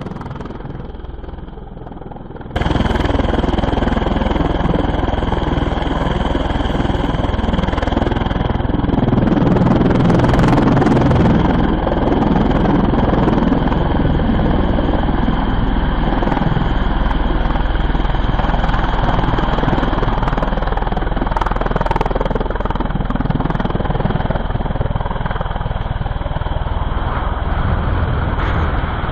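A loud, steady engine running, which cuts in abruptly about two and a half seconds in.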